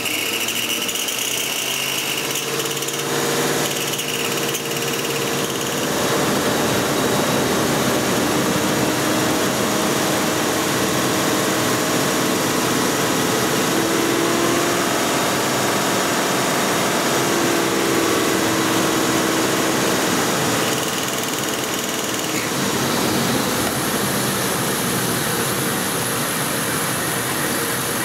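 Ford 5.4 V8 engine held at about 3,000 rpm in park, giving a loud, harsh, annoying noise that comes from a restricted exhaust: plugged catalytic converters building 6 to 9 psi of back pressure, with pressure escaping from somewhere in the intake, crankcase or exhaust. The pitch wavers up and down in the middle as the revs shift.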